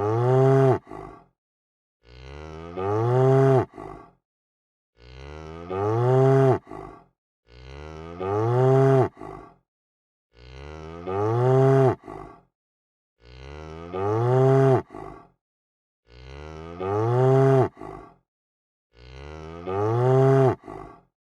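Cow mooing: the same single moo repeats about every three seconds, eight times over. Each call swells in pitch, then falls and cuts off abruptly, like a looped recording.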